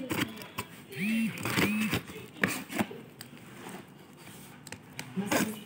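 A plastic-wrapped cardboard parcel being handled: crinkling, scraping and light knocks, with two short squeaks about a second in.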